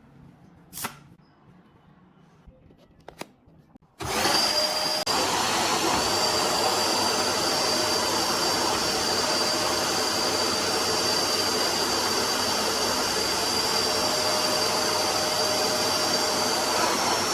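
Two faint clicks. Then, about four seconds in, a vacuum cleaner motor switches on and runs steadily at full speed: a loud rush of air with a high, steady whine.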